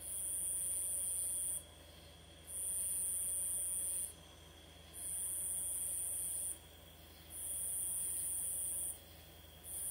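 Chorus of insects calling on a summer evening: a high-pitched buzzing trill that starts and stops in regular spells, about a second and a half on and under a second off, four times over.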